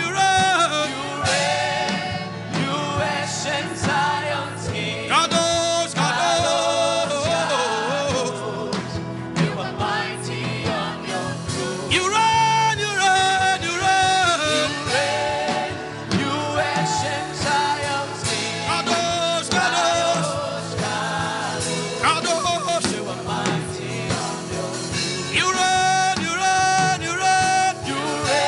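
Gospel worship song with singing over steady musical accompaniment: a repeated praise chant.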